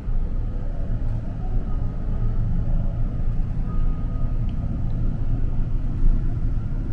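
Elevator car in motion: a steady low rumble inside the cab, with a faint thin whine partway through.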